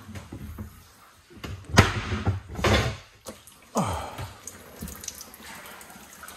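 Floodwater inside a house sloshing and splashing, with several sudden loud splashes or knocks about two, three and four seconds in.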